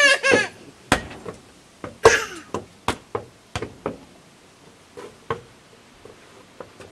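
A toddler's high-pitched vocal squeals, once at the start and again about two seconds in, falling in pitch the second time, amid irregular sharp knocks of hard objects being handled indoors.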